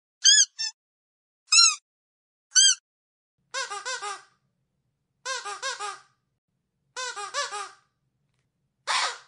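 Squeaky dog toy squeezed again and again, each squeak short and high-pitched. Four single squeaks come in the first three seconds, then three bursts of three or four quick squeaks, and a harsher squeak near the end.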